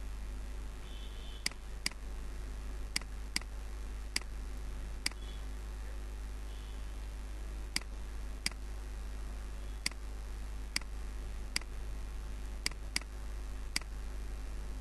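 Computer mouse clicking, about fourteen sharp clicks, some in quick pairs, over a steady low electrical hum.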